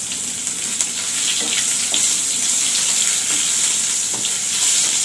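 Sliced onions sizzling in hot oil in a kadhai: a steady frying hiss, with a wooden spatula stirring and scraping them through the pan.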